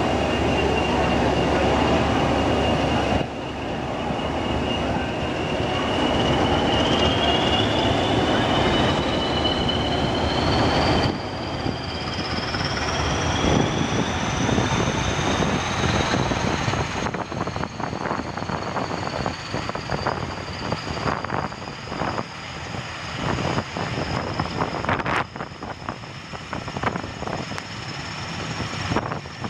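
Pair of English Electric Class 20 diesel-electric locomotives hauling a train away from a station, heard from a coach window behind them. A whine climbs steadily in pitch as the train gathers speed, and from about halfway on the wheels click over rail joints.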